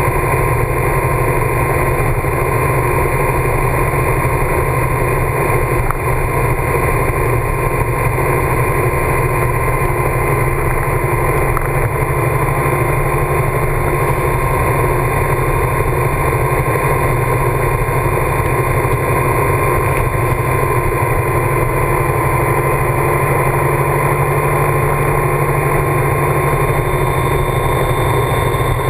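Motorcycle cruising at a steady highway speed on a wet road: a constant engine drone mixed with wind and road noise, unchanging throughout.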